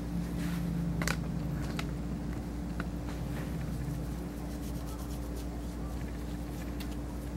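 Steady low hum of a room, with soft rustling and a few faint clicks as hands rub and work through the fur of a dog's ear during ear cleaning.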